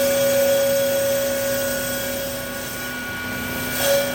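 A 12-blade ice-block cutting machine running: a steady mechanical hum with a whine.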